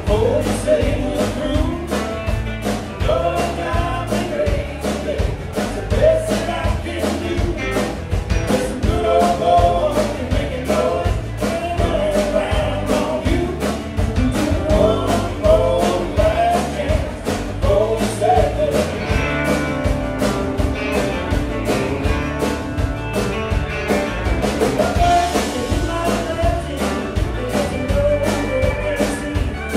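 Live country-rock band playing: electric guitars, keyboard, bass and drums, with a steady drum beat.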